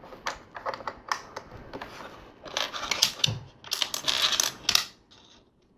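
LEGO plastic bricks clicking and clattering as hands sort through and handle loose pieces, with a denser rattle from about two and a half to nearly five seconds in.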